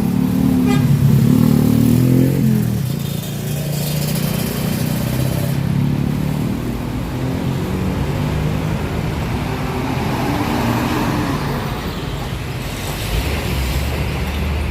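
Road traffic with several engines running close by, including motorcycles, with one engine note rising and falling about two seconds in. A deeper low rumble comes in near the end.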